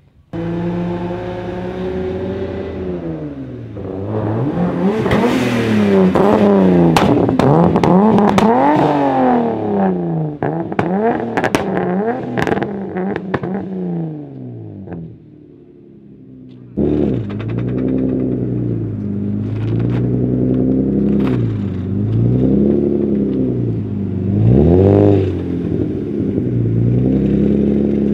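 Drift-car engines revving hard, the pitch climbing and falling again and again, with sharp pops mixed in. After a short lull about halfway through, the turbocharged BMW E36 M50 straight-six is blipped in short revs roughly every two seconds.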